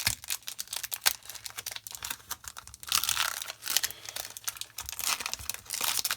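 Yu-Gi-Oh booster pack foil wrappers crinkling and rustling as they are handled and torn open, in irregular crackly bursts.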